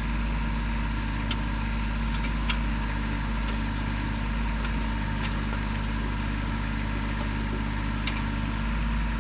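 Kubota sub-compact tractor's three-cylinder diesel engine running at a steady speed while the backhoe is worked, with a couple of sharp knocks in the first few seconds.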